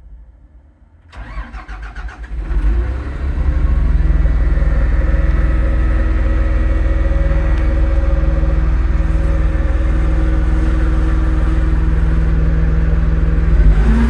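A wheel loader's 8.3-litre Cummins six-cylinder diesel starts from inside the cab. The starter cranks it in quick, even pulses about a second in, it catches within a couple of seconds, and it settles into a steady idle.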